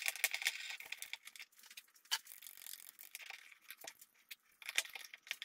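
Faint, scattered clicks and light rustles of a stack of thin steel plates and a steel C-clamp being handled and tightened on a paper sheet, with a couple of sharper ticks about two seconds in and near the end.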